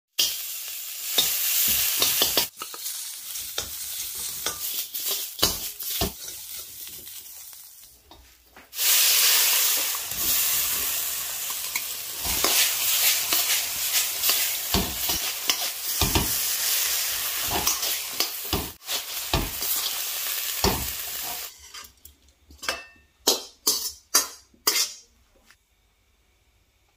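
Hot oil sizzling in a wok as garlic, then shrimp and broccoli, are stir-fried, with metal utensils scraping and clicking against the pan. The sizzle becomes louder about nine seconds in and stops near the end, followed by a few sharp clicks and taps.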